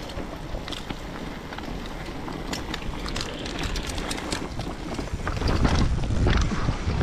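Orange 324 downhill mountain bike running down a rough trail: tyres on dirt and rock, with the chain and bike rattling in many sharp clicks. Wind buffets the microphone, growing louder as speed builds, with a heavy rumble from about five seconds in.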